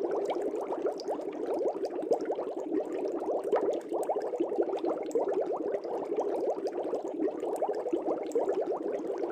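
Water bubbling steadily in a fish tank, a dense stream of small air bubbles popping and gurgling without a break.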